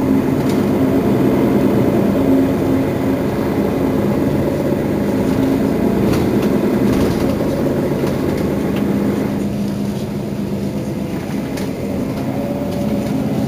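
Mercedes-Benz Citaro facelift city bus idling at a standstill: a steady engine hum that holds its pitch, with no revving.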